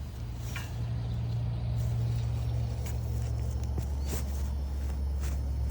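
A potato plant being dug up with a shovel: a few short scrapes and knocks of the blade in the soil over a steady low rumble that drops in pitch about four seconds in.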